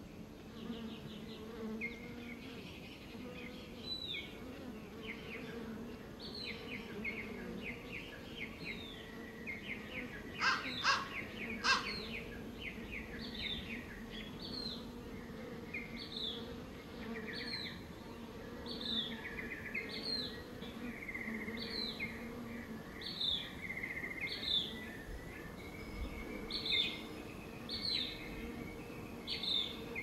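Honey bees buzzing in a steady low hum as they forage among flowers. Small birds sing over it: trilled phrases, and a short downward note repeated about once a second. Two sharp, loud notes come a little past ten seconds in.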